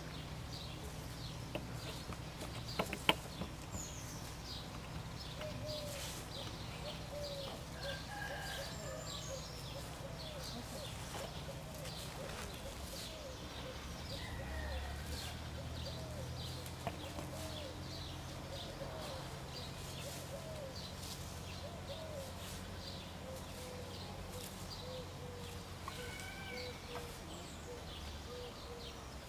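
Birds chirping and calling throughout, over a steady low hum, with a couple of sharp clicks about three seconds in.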